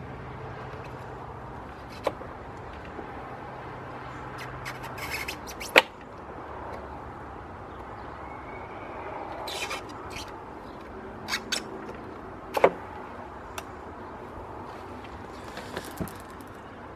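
Fully serrated pocket knife blade sawing through thick fire hose: short rasping strokes and a few sharp clicks over steady background noise.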